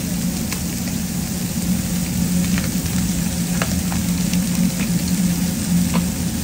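Steak and other meats frying on a steel flat-top griddle: a steady sizzle with scattered crackling pops of fat, over a steady low hum.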